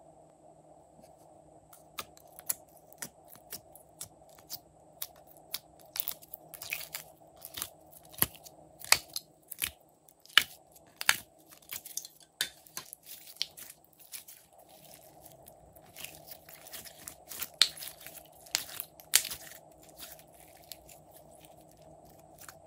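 Glossy slime being squeezed and stretched by hand, giving irregular sticky clicks and pops, some in quick runs, starting about two seconds in.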